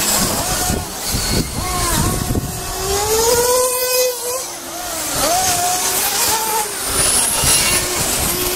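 Several radio-controlled model racing cars lapping a circuit, their high-pitched motor whines rising and falling as they accelerate and slow for the corners, overlapping one another.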